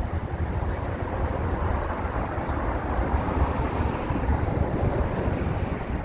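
Wind buffeting the microphone: an uneven low rumble under a steady rushing hiss.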